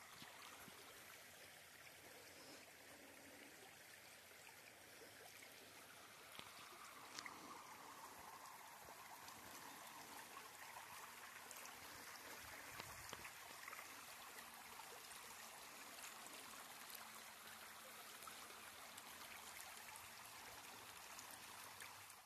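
Faint, steady rush of running water from a stream.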